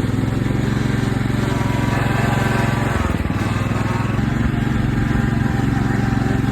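Riding lawn mower's engine running steadily while the mower is driven, its level dipping briefly about three seconds in.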